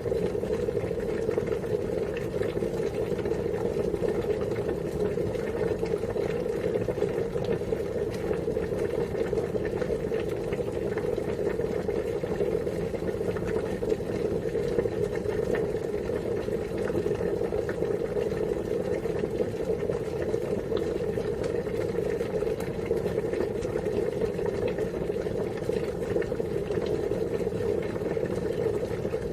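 Water boiling at a steady rolling boil, a continuous bubbling rumble with fine crackle and no breaks.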